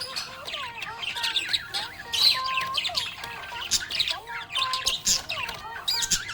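Budgie chirping and warbling: a dense, unbroken run of quick high chirps and short whistled glides.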